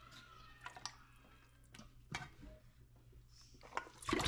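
Pieces of raw cow foot dropped into an empty metal pressure-cooker pot, making a few scattered soft knocks. Near the end a metal bowl is tipped over the pot and the rest slide in with a louder clatter.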